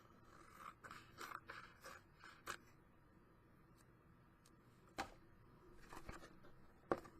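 Scissors snipping off the corners of a paper-covered journal cover: a quick run of faint snips over the first couple of seconds, then a few more, spaced about a second apart, near the end.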